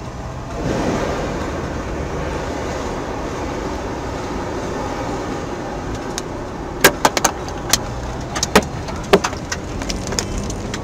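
Steady driving noise heard from inside a moving car. From about six seconds in, a scatter of sharp ticks and knocks is heard as small flying objects strike the car, the loudest a few close together near seven seconds.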